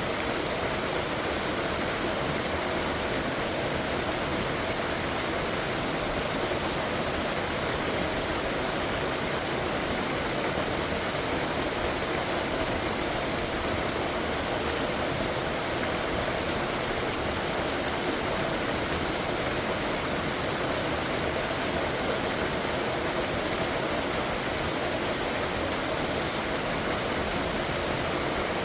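Waterfall: a steady, unbroken rush of falling water that stays the same throughout.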